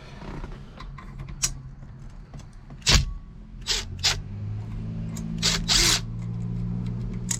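A 1/4-inch DeWalt cordless impact driver hammering in a handful of short, loud bursts while it loosens a steering-wheel mounting screw. A steady low hum comes in about four seconds in.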